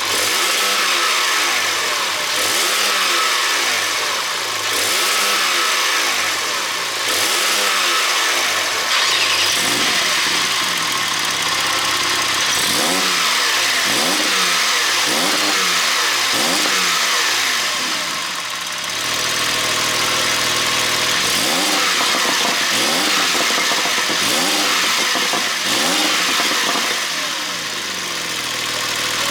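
2017 Porsche 911 Targa 4S twin-turbo flat-six being revved again and again, a quick rise and fall in engine pitch every second or two. About two-thirds of the way through it settles into a steadier run, with a few more revs near the end.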